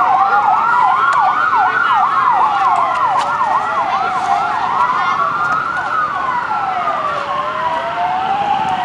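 Several emergency vehicle sirens sounding at once: a slow wail rising and falling every few seconds, overlapped by a fast yelp repeating about three times a second that thins out about halfway through.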